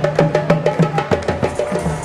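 Music with a fast, even percussion beat of sharp clicks, about six a second, over held low notes.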